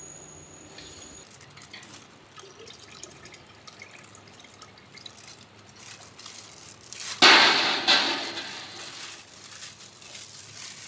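Liquid being poured from a plastic bag into a stainless steel stockpot. Quiet splashing and dripping come first, then about seven seconds in a sudden loud gush of liquid into the pot that dies away over a second or two.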